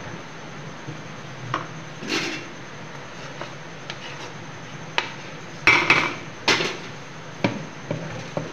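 Wooden dal masher (ghotni) churning and pounding thick cooked rice-and-mung-dal khichdi in a metal pot, knocking against the pot now and then. The knocks come sparse at first and cluster loudest about two-thirds of the way through, over a low steady hum.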